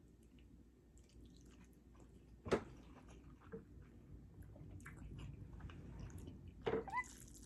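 Close-up mouth sounds of a person chewing spicy instant noodles: faint wet chewing and lip smacks, with a sharp smack about two and a half seconds in and a few louder ones near the end.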